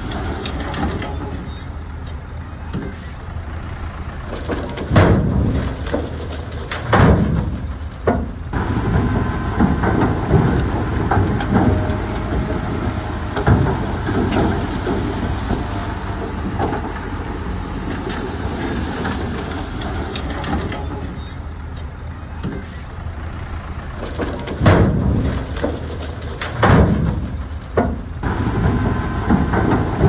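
Diesel engine of heavy earthmoving machinery running steadily, with loud metallic clanks and bangs at irregular intervals: about five and seven seconds in, again in the middle, and twice near the end.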